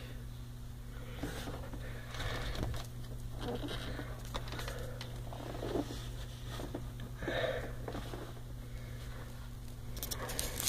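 Irregular rustling, scuffing and breathing of a person shifting about in a cramped boat engine compartment, over a steady low hum.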